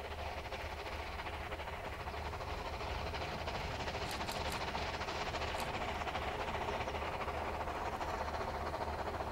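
Narrow-gauge steam locomotive working a train, heard at a distance as a steady blurred running sound that grows a little louder as it approaches.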